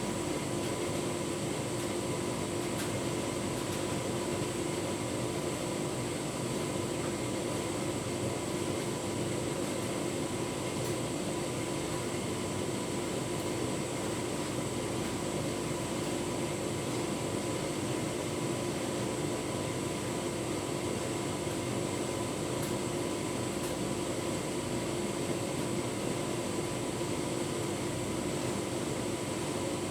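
Tumble dryer running with a full load of bedding: a steady, unchanging hum of the motor and drying fan as the drum turns.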